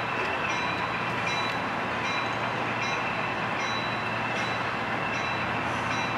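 HO-scale model freight train rolling along the layout's track: a steady running noise of wheels on rails, with faint high ticks repeating a little under once a second.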